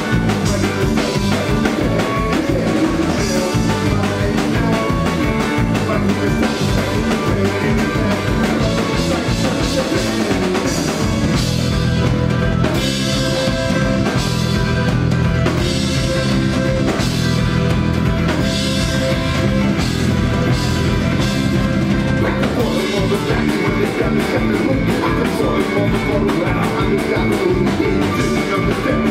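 A rock band playing live and loud: drum kit, electric guitars and bass guitar. Through the middle stretch the low notes are held longer and the sound is fuller.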